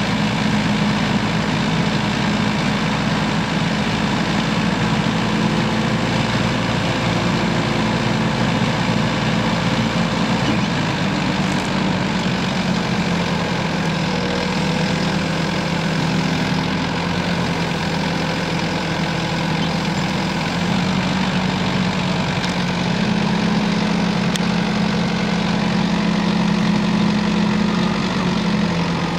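Mecalac 12MSX wheeled excavator-loader's 60 kW diesel engine running steadily while its hydraulic arm and bucket move, the engine note shifting slightly in pitch a few times.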